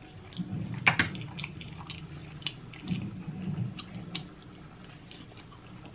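Close-miked chewing and wet mouth sounds of a person eating creamy shrimp Alfredo pasta, in two bouts with scattered sharp clicks, the sharpest about a second in.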